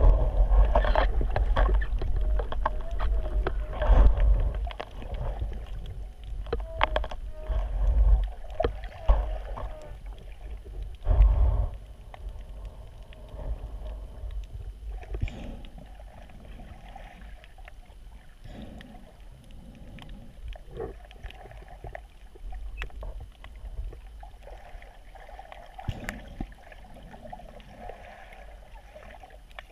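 Muffled water surging and sloshing around a camera in the surf, with a heavy low rumble for about the first twelve seconds, then a quieter steady wash.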